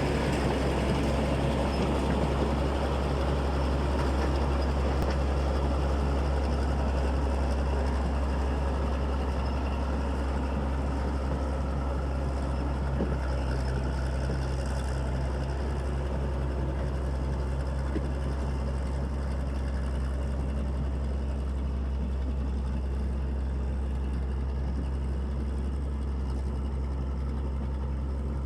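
Caterpillar D6B bulldozer's diesel engine running steadily with a deep, even drone.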